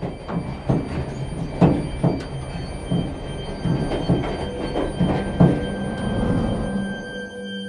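A low rumble with a run of irregular heavy clunks, like a train running over the rails. The clunks fade away near the end, leaving a held, ringing musical drone.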